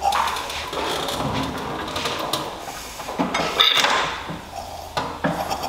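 Workshop handling noise: metal tools and parts clattering and scraping as the motorcycle engine is worked on, loudest a little past halfway, then a couple of sharp clicks near the end.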